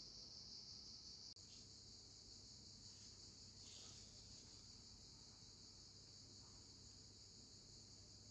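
Near silence: a faint, steady high-pitched hiss, with a brief dropout about a second in.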